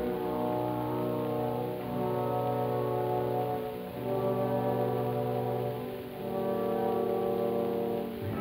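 Orchestra in an early electrical recording from 1928–30, with hiss and a dull top end: held chords led by brass, in phrases of about two seconds with short breaks between them.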